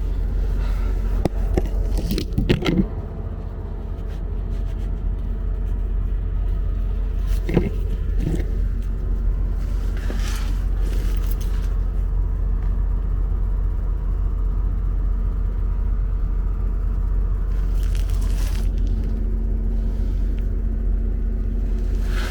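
A vehicle engine idling with a steady low rumble, with a few brief knocks and scrapes near the start and again about a third of the way in.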